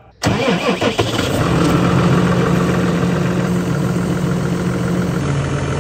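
Tractor diesel engine starting: it catches suddenly within the first second, then settles into a steady idle, its pitch dropping slightly near the end.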